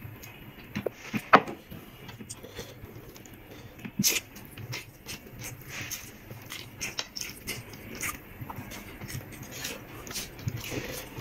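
Close-miked eating sounds: wet chewing, smacking and squishing of rice with chicken curry gravy, in irregular short clicks, sharpest about a second in and again about four seconds in.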